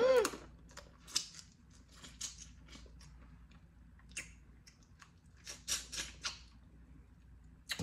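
Boiled blue crab shell being cracked and picked apart by hand: scattered short crackles and snaps in small clusters, with quiet gaps between.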